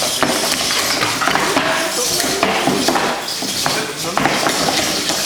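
Small humanoid fighting robots clattering and knocking on the ring, many light plastic-and-metal hits in quick succession, with voices chattering in the hall.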